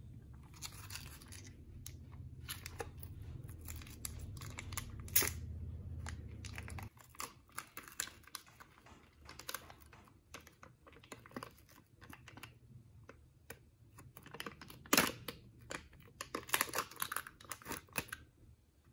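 Foil lid being peeled off a plastic yogurt cup: irregular crinkling and tearing with handling rustles, loudest in a few sharp crackles in the last few seconds. A low hum runs underneath for the first seven seconds and then stops abruptly.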